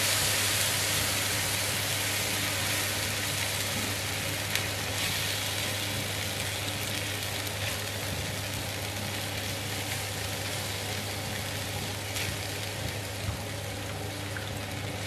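Onions and flour sizzling in a non-stick frying pan as milk is stirred in with a spatula, with a few faint clicks. The sizzle gradually fades. A steady low hum sits underneath.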